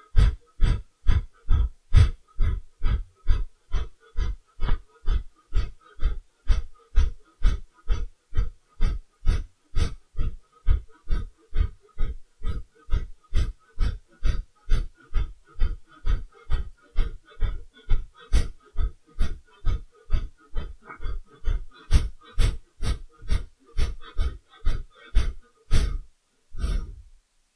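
A woman doing Kapalabhati breathing: a round of about sixty short, forceful exhalations through the nose, about two a second, each pushed out by pulling in the belly, with the inhalation between them left passive. The puffs stop shortly before the end.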